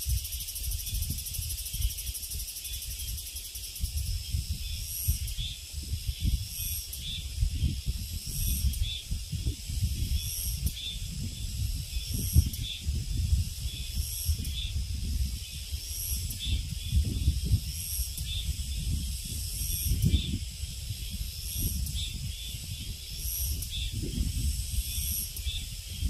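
A high-pitched summer insect chorus shrilling steadily and swelling in short pulses about once a second, over a low, gusty rumble of wind on the microphone.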